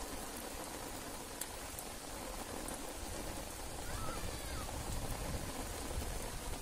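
Steady rain falling on shallow floodwater, an even hiss.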